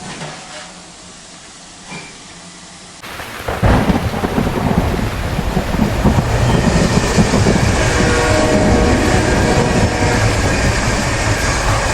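A train passing close by, heard after an abrupt cut about three seconds in: loud, heavy rumbling with thin steady high tones over it from several seconds on. Before the cut there is a quieter stretch with a couple of brief clicks.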